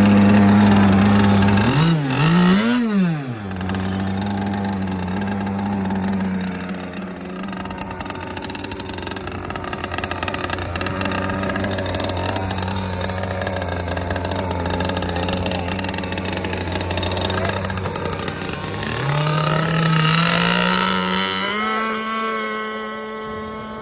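Small two-stroke gas engine of an RC boat running steadily. It is revved up and down sharply a couple of times about two seconds in, and climbs in pitch again near the end.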